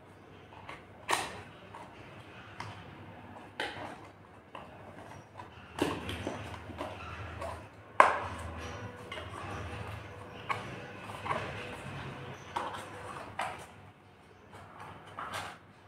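Cardboard smartwatch box handled and opened by hand: scattered taps, clicks and scrapes as the inner tray slides out of its sleeve, the sharpest knock about eight seconds in.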